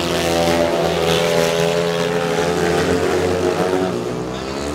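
Speedway motorcycles, 500 cc single-cylinder methanol-burning engines, running hard as three bikes race around the dirt oval. Their engine notes climb and then fall away near the end.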